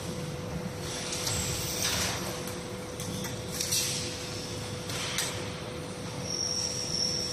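Parts of a cooling pad's top frame sliding and scraping as they are handled, in four short strokes a second or two apart, over a steady hum.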